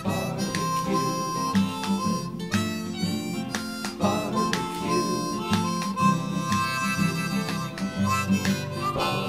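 Background music with long held notes over a steady plucked rhythm.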